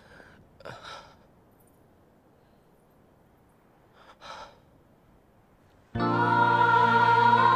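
A man's two soft breathy sighs, about a second in and again about four seconds in. Near the end the film score comes in suddenly and loudly with held chords.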